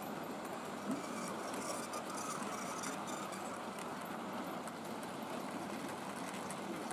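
Model train running along the layout's track: a steady running noise of wheels on rail with faint, irregular ticks.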